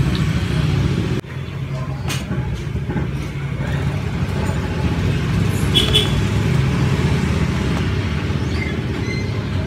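Steady low rumble of road traffic with a vehicle engine running, dropping abruptly in level just over a second in, with a short high beep about six seconds in.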